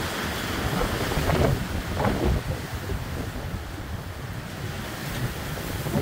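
Strong storm wind gusting through the trees and buffeting the microphone, with leaves thrashing; the gusts swell hardest about a second and a half in and again at two seconds.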